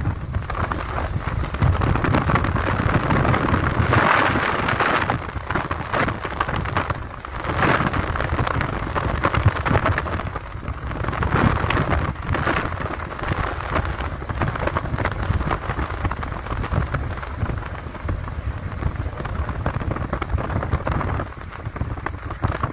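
Wind rushing and buffeting against the microphone from a moving vehicle, in uneven surges, over a steady low rumble of engine and road.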